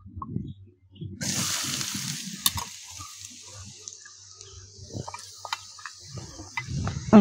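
Chopped onions dropped into hot oil in an aluminium kadai: a sudden loud sizzle about a second in that settles into a steady high frying hiss with scattered pops. A low thump comes just before the end.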